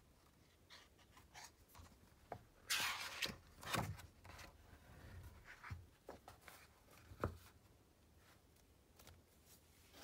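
Hardcover picture book being handled and turned over to its back cover: a paper rustle about three seconds in, and a few light knocks of the cover, one more a little past the middle.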